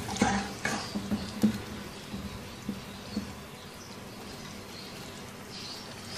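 A spatula stirring meatballs in thick curry gravy in a pan, knocking against the pan several times in the first second and a half and a few lighter times around two to three seconds in. After that the gravy keeps cooking with a faint steady hiss.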